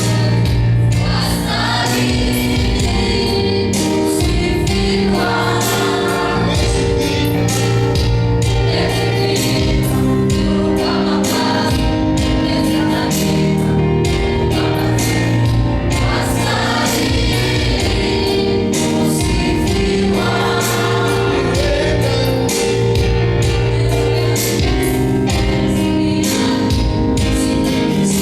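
Choir singing a gospel song over a steady beat.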